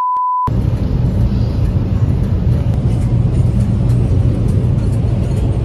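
A steady 1 kHz test tone, the kind played with TV colour bars, for about half a second. It cuts to the steady low rumble of road and engine noise inside a moving car's cabin.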